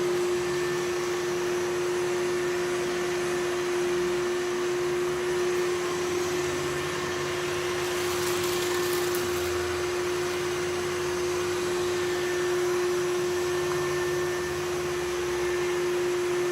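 Samsung VR20M7070WD robot vacuum running, a steady motor hum with one clear tone over the whoosh of suction. A brief higher hiss rises over it about halfway through.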